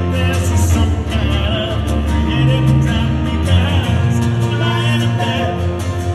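Live song: a man singing into a microphone while strumming an acoustic guitar, with band accompaniment underneath.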